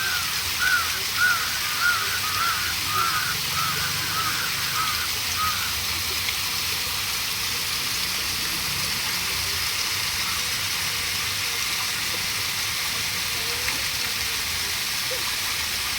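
Steady rush of flowing water. Over it, a bird gives a quick run of about a dozen short calls that fade out about five seconds in.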